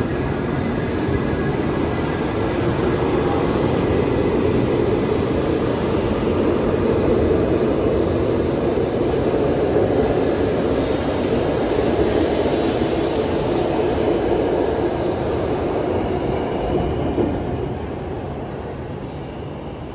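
923-series Doctor Yellow Shinkansen test train pulling out of the station and running past at low speed, a steady rumble of wheels and running gear that builds as it gathers speed and then fades over the last few seconds as the train draws away.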